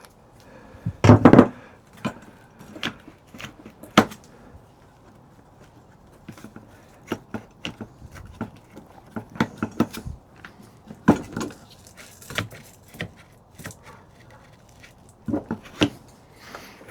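Irregular clicks, knocks and light metallic clatter of tools and small parts being handled while fitting the motor and motor mount of an RC truck, with a louder clatter about a second in.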